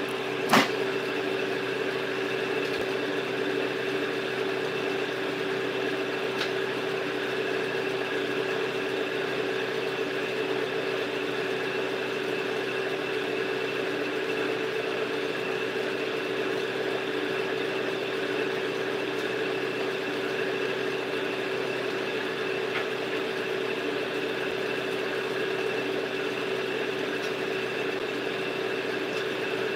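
A small motor running steadily, a constant even hum that does not change, with a sharp click just after the start.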